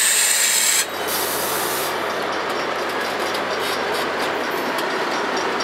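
Bilevel passenger cars of a train rolling slowly past at close range. A loud high-pitched hiss lasts about the first second, a shorter one follows, and then there is steady wheel rumble with light clicks.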